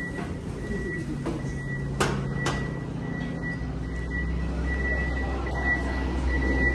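Steady low running rumble inside a moving train carriage, with a thin high whine coming and going and a couple of sharp clicks about two seconds in.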